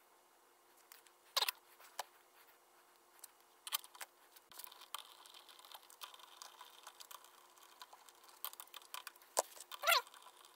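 Faint, scattered clicks and taps of small metal hardware being handled by hand, cylinder-head nuts and washers set onto their studs, with a few slightly louder ticks.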